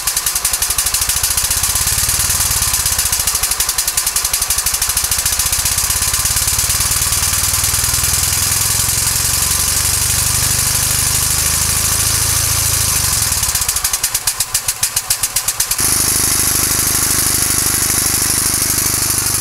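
Homemade steam motorcycle's steam engine running fast, belted to a generator that is lighting a bank of lamps, its exhaust beats coming too quickly to count. About two-thirds of the way in the beats come apart and turn quieter for a moment, then the sound changes to a steadier hissing run.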